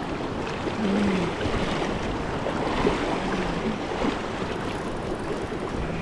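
Steady rushing of a river's current flowing over rocks, an even wash of water noise.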